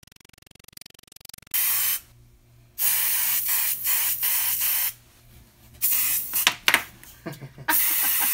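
Aerosol spray paint can hissing in four bursts. The first starts about a second and a half in, and the longest lasts about two seconds. A couple of sharp clicks come between the third and fourth bursts.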